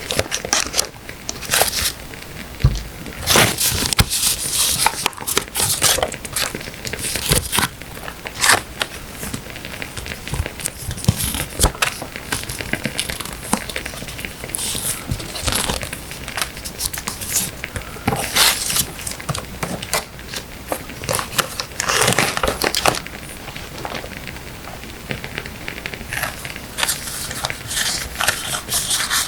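Paper and stickers rustling, crinkling and being peeled, in irregular handling sounds, with the crackle of burning firewood behind.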